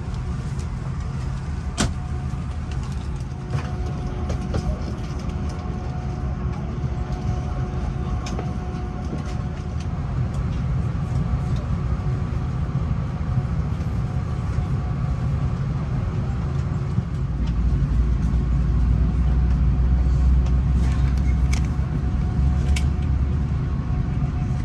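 Steady low rumble and hum of airliner and airport ambience, with a few faint clicks and knocks; the rumble grows louder about two-thirds of the way through.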